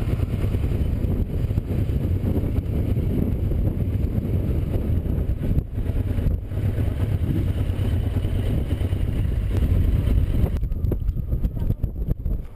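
Wind buffeting the microphone of a camera mounted on a moving motorcycle, with the bike's engine running underneath as it rides slowly. The higher hiss thins out near the end as the bike slows to a stop.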